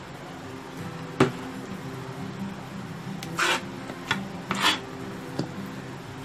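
A spoon scraping and knocking against the side of a large metal pot while stirring thick phirni with grated khoya: a sharp knock about a second in, two longer scrapes in the middle, and a few lighter clicks.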